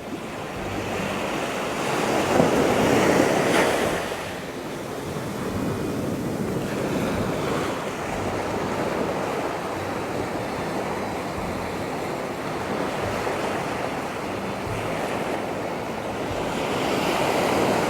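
Waves of the Andaman Sea washing onto a sandy beach, a steady rush that swells louder about two to four seconds in and again near the end.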